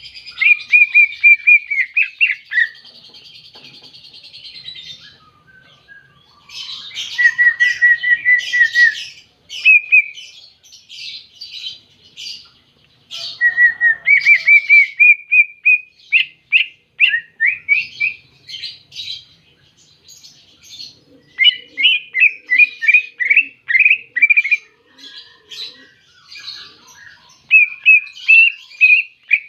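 Cucak ijo, a green leafbird, singing loud, varied phrases of rapid chirps and short trills separated by brief pauses, with a buzzy rattle a few seconds in.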